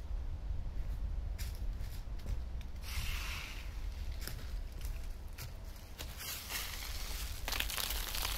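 Outdoor background noise: a steady low rumble, with rustling that swells about three seconds in and again near the end.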